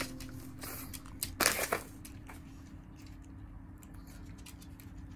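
Plastic treat packet crinkling in a few short bursts as a dog noses at it, loudest about one and a half seconds in, with small scattered clicks afterwards.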